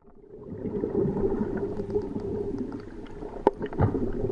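Underwater bubbling and gurgling sound effect, a dense churning water sound with scattered pops, fading in from silence at the start.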